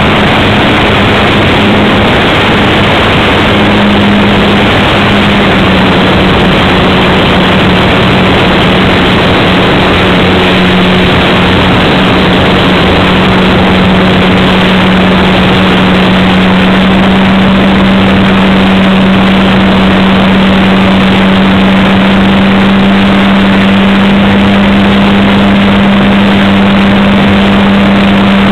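Brushless electric motor and propeller of an RC Cub model plane in flight, heard from its onboard camera: a steady hum that wavers a little in the first few seconds and then holds, under a loud, even hiss.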